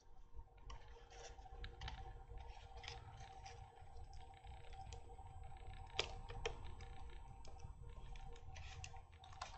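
Faint, irregular clicks and taps of a foam model aircraft's wing and fuselage being handled and pressed together in a dry test fit, with a sharper click about six seconds in. A faint steady hum runs underneath.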